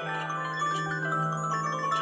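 Several Samsung Galaxy phones' timer alarm tones ringing together: overlapping chiming, marimba-like melodies, over a steady low buzz.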